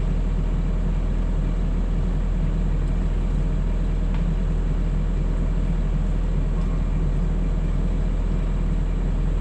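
Mini excavator's diesel engine running steadily at an even pace, a constant low rumble with no change in speed.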